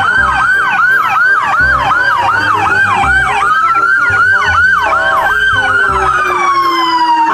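Police siren sounding in a fast yelp, its pitch sweeping up and down about three times a second, with a slower wailing tone gliding downward through the second half.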